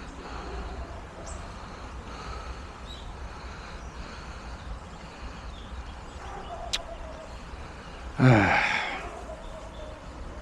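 A person's loud, short exhaled sigh, falling in pitch, near the end. It comes after a single sharp click, over a steady low rumble.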